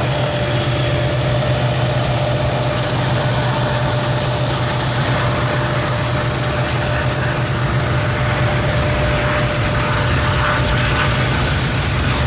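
Diesel freight locomotives, a CSX GP40 followed by Union Pacific units, passing with their engines running: a steady low drone with a steady whine held above it.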